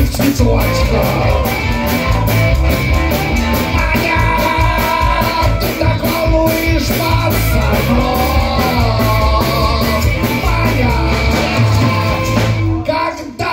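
Live rock-and-roll band playing an instrumental break: drum kit with a steady beat, bass, electric guitars and tambourine, with a harmonica line on top. The music breaks off briefly near the end.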